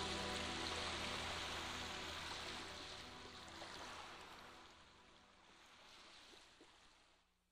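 Steady rushing-water sound, the tail of a soft background music track, fading out to silence near the end.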